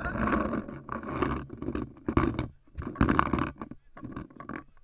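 A person's voice in loud, rough bursts, about one a second.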